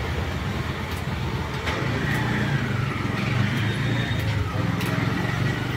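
Low, steady rumble of motor-vehicle traffic on the road, with a few light clicks over it.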